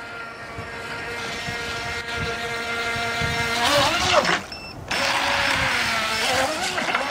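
Steady high whine of a Double Horse DH7010 RC boat's brushed electric motor, growing louder as the boat speeds close by. About four seconds in it wavers amid splashing, cuts out for about half a second, then starts again.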